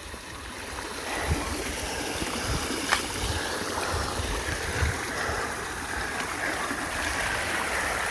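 Floodwater draining away in a steady, stream-like rush. A few low thumps and a sharp click about three seconds in are heard over it.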